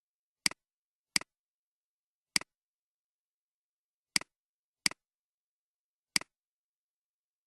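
Six short, sharp clicks at irregular intervals over dead silence, each a quick double tick, all alike.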